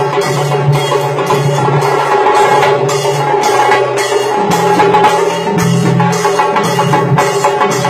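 Tassa drum ensemble playing fast, loud rhythmic drumming: rapid stick strokes on the tassa drums over a booming bass drum, with a steady stroke about three times a second that cuts through on top, as from the ensemble's hand cymbals.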